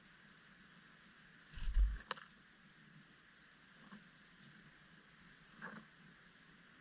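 A dull low thump about one and a half seconds in, followed at once by a sharp click, then a fainter knock near the end, over a faint steady hiss.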